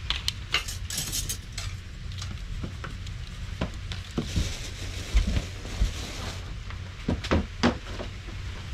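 A fork clicking and scraping on a plate, then a salt shaker shaken over a bread roll about four seconds in, over a steady low rumble.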